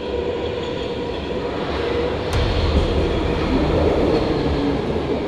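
Munich U-Bahn train running in an underground station: a steady rumble with faint humming tones.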